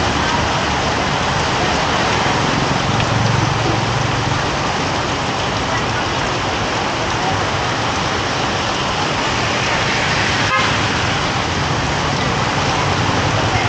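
Steady rain falling on a street, with motor traffic passing. A low vehicle engine hum swells about three to five seconds in and again near the end.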